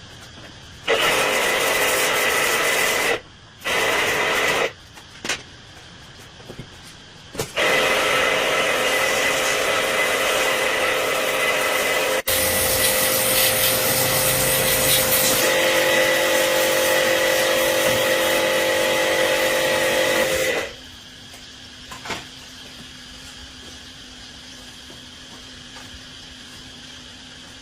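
A handheld electric power tool running in bursts: two short runs, then one long run of about thirteen seconds whose tone shifts partway through.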